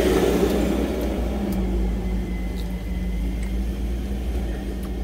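Truck engine idling with a steady low hum, heard from inside the cab.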